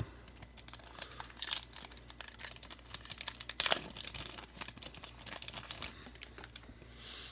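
Crinkling and rustling of a trading-card pack wrapper and a stack of baseball cards being handled: irregular crackles and clicks, with a sharper crackle about three and a half seconds in.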